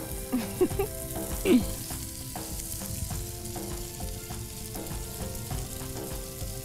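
Masala corn sizzling in a frying pan while cheese is grated over it on a small hand grater, with a scrape at each stroke. Two brief squeaks stand out in the first second and a half.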